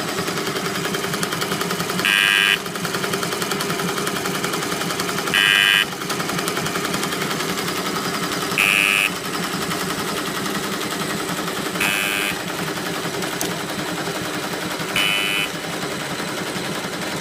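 High-speed single-straw film packing machine running: a fast, steady mechanical clatter. Five times, at even intervals of about three seconds, a louder half-second burst sounds, higher in pitch.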